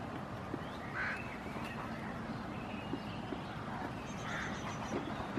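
Goats browsing on a pile of cut leafy branches: leaves rustling and twigs clicking and snapping. Two short bird calls come through, one about a second in and one near the end, with a faint run of high chirps just before the end.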